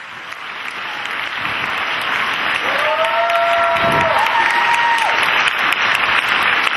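Audience applauding a person walking onto a stage, growing louder over the first two seconds and then steady.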